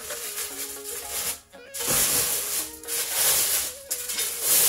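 Clear plastic packaging bag rustling and crinkling in loud bouts from about two seconds in, as it is handled and pulled out of the box, over background music with held notes.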